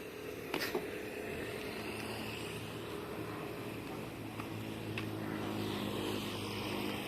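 An engine running steadily, its hum growing stronger in the second half, with a few sharp knocks about half a second in and again near five seconds.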